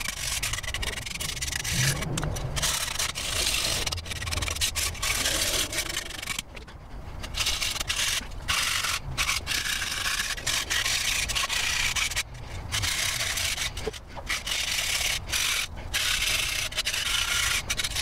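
Hand wire brush scrubbing loose surface rust off a rusty steel bracket, rapid back-and-forth scratching strokes with a few brief pauses. This is a quick rust clean-up before rust-converting paint.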